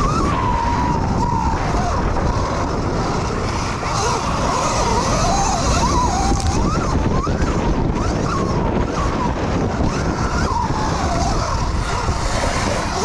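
Electric motocross bike's motor whining, its pitch rising and falling again and again with the throttle, over a steady rush of wind and rumble.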